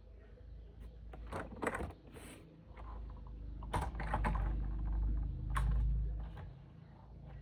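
Plastic toy vehicles being handled: irregular sharp clicks and rattles, over a low rumble that swells through the middle and eases off near the end.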